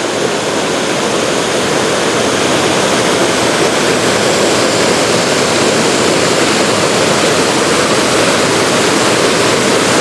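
Steady rush of river water pouring over a small rock cascade below a waterfall.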